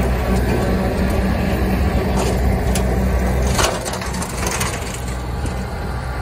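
Kubota compact tractor's diesel engine running steadily under load while its rear bush hog (rotary cutter) chops brush, with several sharp cracks and snaps of branches between about two and four seconds in. The loudest snap comes near the end of that run, and the sound eases a little after it.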